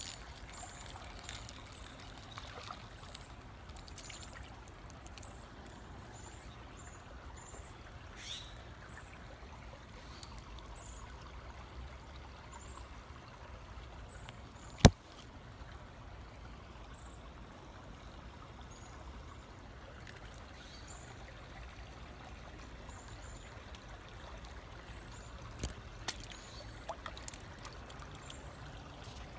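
Faint steady trickle of a shallow creek running over stones, with low rumble from wind or handling on the microphone. A single sharp click about halfway through and a few small clicks near the end.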